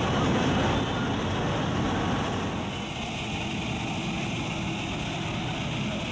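Steady outdoor engine and street noise, a little louder in the first second and then even.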